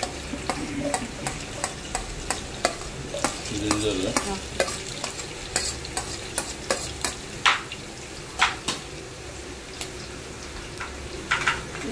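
Chopped food sizzling as it fries in hot oil in a pot, with a metal spoon clicking and scraping again and again on a plate as the food is pushed off into the pot. A few louder spoon taps come past the middle and near the end.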